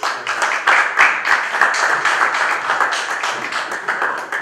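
Audience applauding, many hands clapping densely, dying down at the very end.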